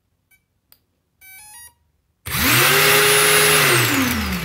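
A brushless controller powering up with a quick run of stepped beeps. Then the Parkside Performance angle grinder's brushless motor and gear head spin up fast, run steadily for about a second with a high whine, and coast down as the pitch falls.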